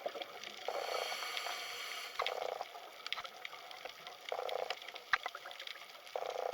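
Underwater ambience: a steady crackle of small clicks, with short bursts of rushing water noise about every two seconds.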